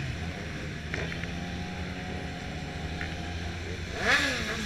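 Motorcycle engine running steadily, with one quick rev that rises and falls about four seconds in.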